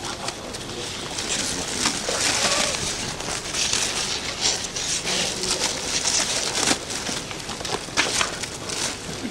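Clear plastic bags rustling and crinkling in waves as hands dig banknotes out of them, with small handling clicks and taps.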